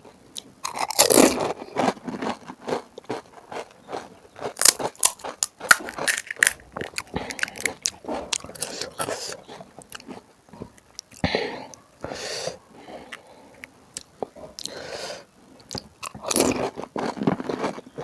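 Close-miked crunching and chewing as crisp puris filled with spiced water are bitten and eaten, in clusters of crackling crunches with short pauses between mouthfuls.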